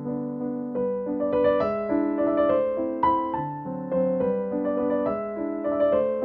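Background instrumental music: a melody of held notes moving over chords.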